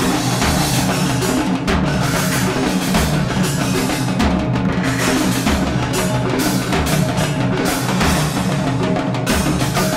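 Background music with a steady drum beat and percussion.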